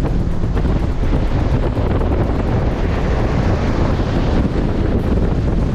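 Wind buffeting the microphone on a speedboat running at speed, with the rush of water and the boat's motor underneath as a steady loud rumble.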